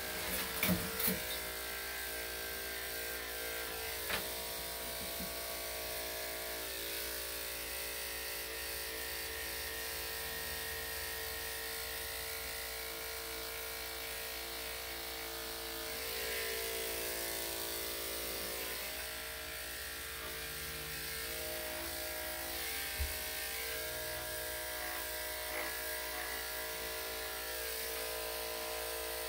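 Corded electric dog grooming clippers running steadily with an even motor hum as the blade clips a small dog's coat, the hum swelling slightly about two-thirds of the way through, with a few light clicks near the start.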